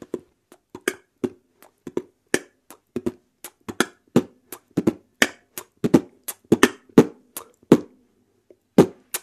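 Beatboxed mouth percussion: dry clicks and pops in an uneven rhythm, about two to three a second, pausing for about a second near the end.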